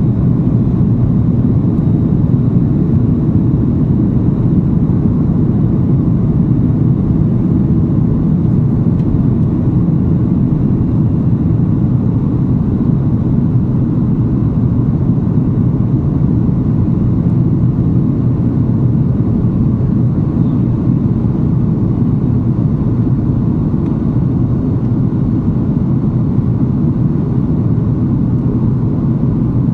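Steady low rumble of engine and airflow noise inside the cabin of an Airbus A330-243 climbing out after takeoff, from its Rolls-Royce Trent 700 engines.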